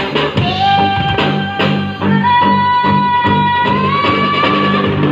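Karaoke: a woman singing into a microphone over a backing track with a steady beat, holding long high notes that step up in pitch twice.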